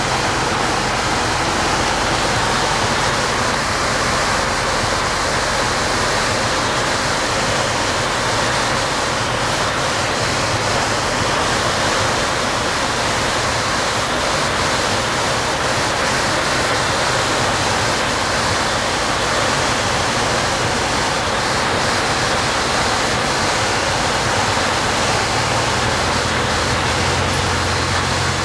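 Steady rush of engine, propeller and airflow noise inside the cabin of a Zenair CH-300 light aircraft with a Lycoming O-320 four-cylinder engine and two-blade metal propeller, on final approach. A deeper low rumble comes in near the end as the plane comes down over the runway.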